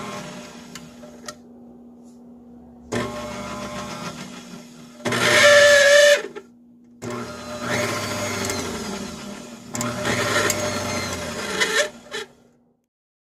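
KitchenAid tilt-head stand mixer motor running in bursts as it is switched on and off and moved between speeds with its speed lever. The loudest burst, about five seconds in, carries a steady high whine, and the running stops shortly before the end.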